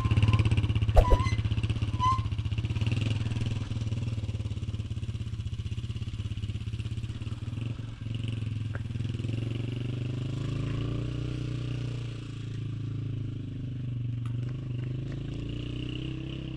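A small engine running steadily with a fast, even pulse, gradually getting fainter.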